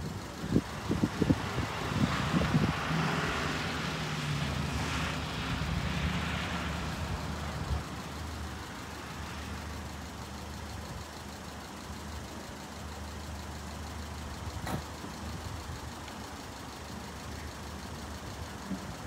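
Road vehicles running and idling, a steady low engine hum, louder for the first seven seconds or so as a vehicle moves past. There is one sharp click about three-quarters of the way through.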